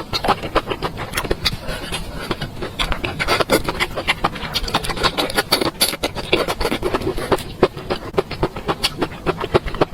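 A person eating close to the microphone: chewing with a dense, irregular stream of quick wet mouth clicks.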